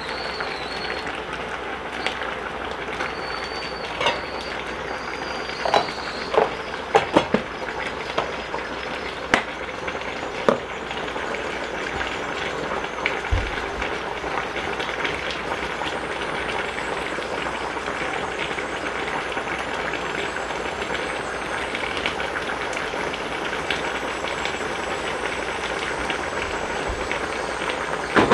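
Radish stew boiling steadily in a stainless-steel pot on an induction cooktop, with a metal spoon clinking against the pot several times in the first ten seconds or so.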